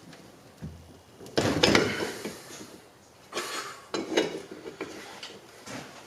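Metal clanking and clatter of hand tools being handled, in several separate knocks; the loudest cluster comes about one and a half seconds in.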